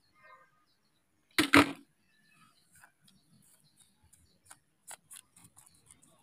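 A single short knock about a second and a half in, then faint scattered ticks and scrapes of fingers pushing sand over a small plastic toy.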